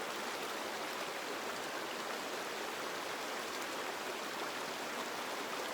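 A small stream running and burbling over rocks, a steady even rush of water.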